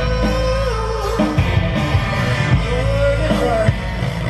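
A rock song with a singer, received from an FM radio station and played through a Marantz 2270 stereo receiver.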